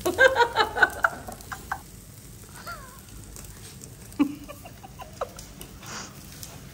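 Chicken clucking: a fast run of loud clucks in about the first second, then a few scattered clucks and clicks.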